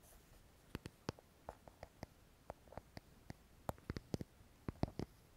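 Soft, irregular clicks and taps, a few a second, close to the microphone: small products from a pouch being handled and tapped.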